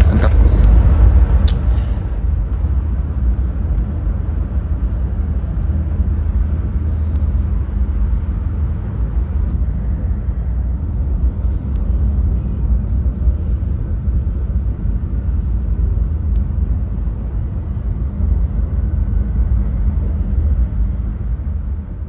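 Steady low rumble of the KM Lawit passenger ship's engines droning through the ship on board, with a couple of faint clinks in the first two seconds.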